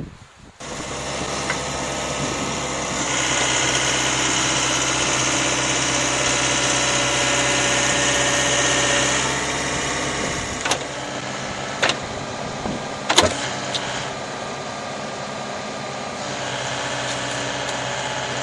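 Excavator's diesel engine running steadily, growing louder about three seconds in and easing back after about nine, with three sharp knocks a little past halfway.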